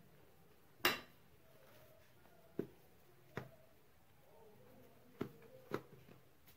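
A few light knocks and clicks of hands handling a marshmallow slab on a stainless steel tray. There are five separate taps, the first, about a second in, the loudest.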